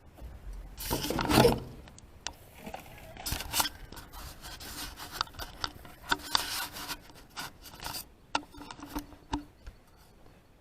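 Cattle eating feed from a trough: irregular crunching, rubbing and scraping of muzzles in the feed, with a louder scrape about a second in and scattered clicks.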